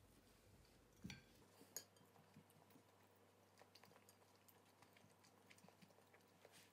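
Very quiet eating sounds: scattered faint clicks of chopsticks against a ceramic bowl, two a little louder about a second and two seconds in, with soft chewing.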